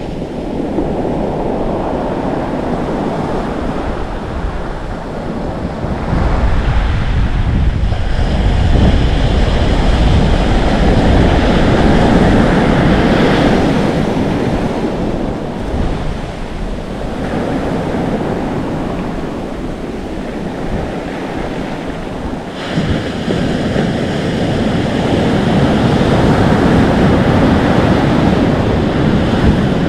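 Atlantic Ocean waves crashing, foaming and sizzling on the shore, with wind rumbling on the microphone. The surf swells louder about a fifth of the way in and again in the last third.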